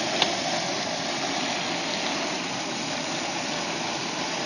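Propane turkey fryer running: a steady hiss of the burner and the oil bubbling in the pot, with one sharp click about a quarter second in.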